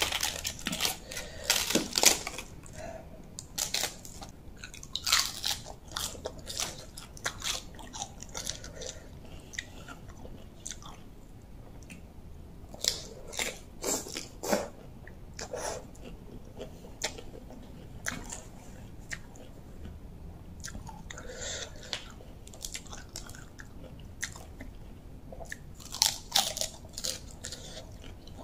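A person eating close to the microphone: crunchy bites and chewing of raw vegetables and rice noodles. The crunches come in scattered clusters with quieter gaps between.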